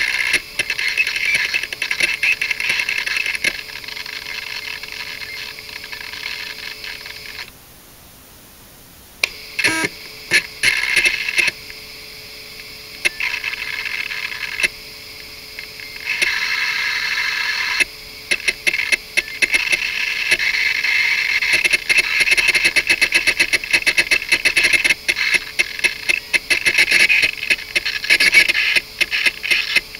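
LS-120 SuperDisk drive working with a 1.44MB floppy disk: a steady motor hum and whirr with rapid, irregular head-seek clicks. It goes quiet for about two seconds about a quarter of the way in, then starts again.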